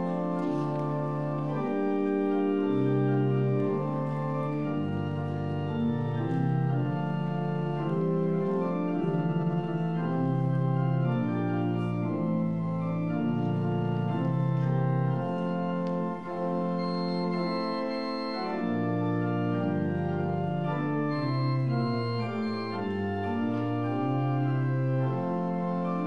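Church organ playing full sustained chords over a moving bass line.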